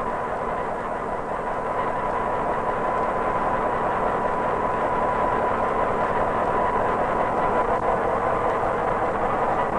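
ČSD M263.0 diesel railcar running slowly alongside a platform: a steady engine and rolling noise, a little louder after a couple of seconds, with a thin steady high tone running under it, as heard on an old film soundtrack.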